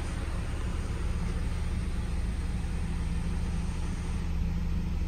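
2015 Ram ProMaster City's 2.4-litre four-cylinder engine idling steadily, heard from inside the cab.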